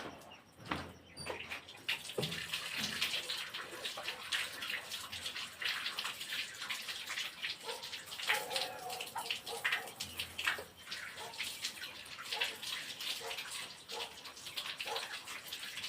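Running, splashing water: a steady, irregular crackly rush.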